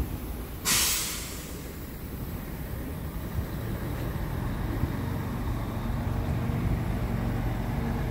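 Scania R tractor unit's diesel engine idling steadily, with a short, sharp hiss of compressed air let out of the truck's air system just under a second in that fades within half a second.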